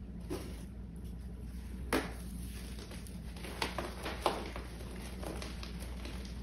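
Hands crushing a glitter-coated block of pink reformed gym chalk into powder: soft crumbling with irregular sharp crunches, the loudest about two seconds in and a cluster of them around four seconds. A steady low hum lies underneath.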